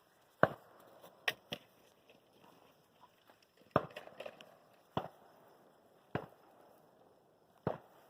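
Fireworks going off: about seven sharp bangs and cracks at uneven intervals, a couple of them in quick pairs.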